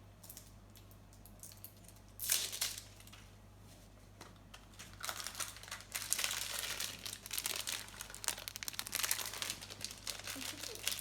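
A small packaging bag being opened and handled: a short sharp rustle about two seconds in, then steady crinkling and rustling from about five seconds in.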